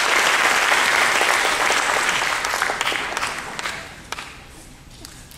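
Audience applause, a dense patter of many hands clapping that thins out and dies away about four seconds in.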